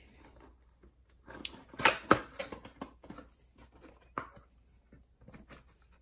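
Cardboard box being opened by hand: the flaps pulled open and folded back, with scraping and sharp cardboard clicks, the loudest cluster about two seconds in.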